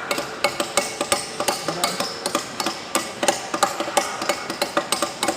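Hammer tapping on metal in quick, even light strikes, about three to four a second, while new turbine blades are fitted to a turbocharger rotor.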